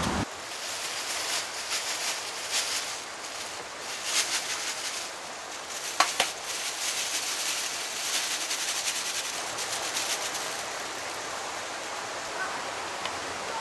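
Mountain stream rushing steadily, with scattered splashes and rustles of vegetables being rinsed in water through the first half and a sharp click about six seconds in.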